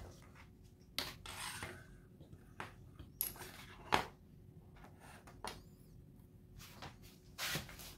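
Faint handling noises as a soldering iron with its bare circuit board is put down and shifted on a wooden tabletop: scattered light knocks and rubs, the sharpest knock about four seconds in.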